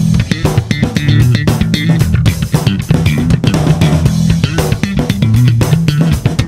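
Background music: a band track with bass guitar, guitar and drums playing a steady beat.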